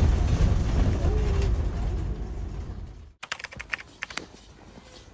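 A low rumbling noise fades away, then cuts off abruptly; after the cut comes about a second of quick, crisp clicks.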